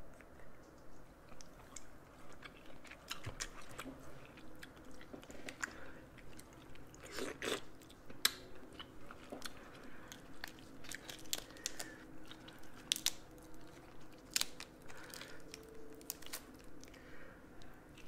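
Close-miked eating of seafood boil shrimp: steady rhythmic chewing with wet mouth sounds, mixed with sharp clicks and crackles of shrimp shell being peeled by hand.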